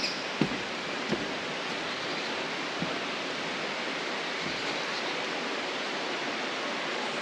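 Steady rain falling, an even hiss, with a few soft knocks in the first three seconds.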